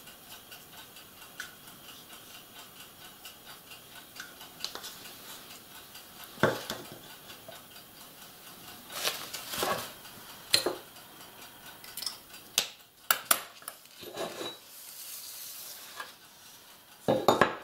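Hobby tools and small plastic items being handled and set down on a wooden work table: scattered knocks and clicks from a plastic paint cup, a brush and a sanding sponge, with paper rustling just before the end. A faint, steady ticking of about two ticks a second runs under the first half.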